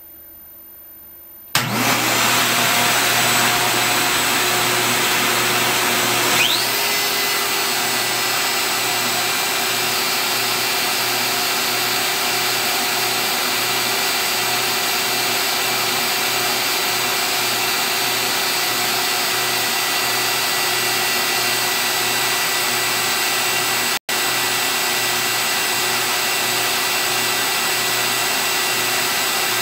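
A dust-collection vacuum switches on suddenly about a second and a half in and runs steadily. About five seconds later a DeWalt 611 trim router spins up with a rising whine, then runs at speed alongside it. Both cut out for an instant near the end.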